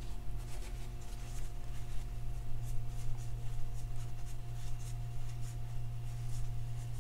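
Paper shop towel rustling and rubbing in quick, irregular strokes as old grease is wiped off a fishing reel's main drive gear, over a steady low hum.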